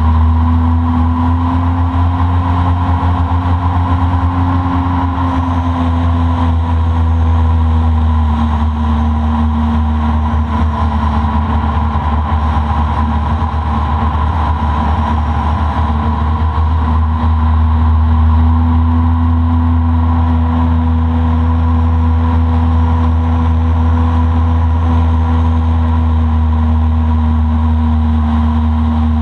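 Motorboat engine running steadily while cruising on flat water. Its pitch drops slightly a few seconds in and comes back up about halfway through.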